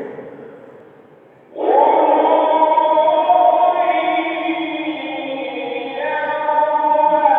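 Male Quran reciter chanting in the mujawwad style: a reverberant tail fades out, then about a second and a half in he begins one long held melismatic note, its pitch shifting upward about six seconds in.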